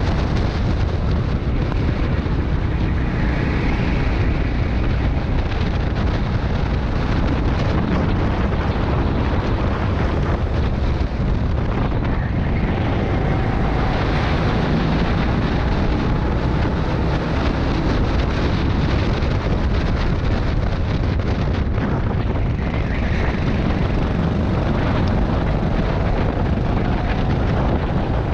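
Rental go-kart engine running at racing speed, with heavy wind rush on the microphone; the engine note rises and falls faintly as the kart speeds up and slows.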